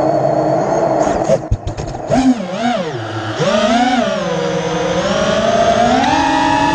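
FPV quadcopter's T-Motor F60 III brushless motors and propellers whining, the pitch following the throttle. The whine holds steady, dips briefly with a few clicks just after a second in, swings up and down twice, then settles and steps higher near the end.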